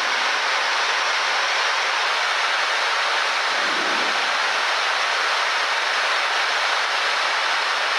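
Steady rushing airflow noise on the flight deck of a Boeing 747-400 at high-speed climb, about Mach 0.84 near 34,000 ft.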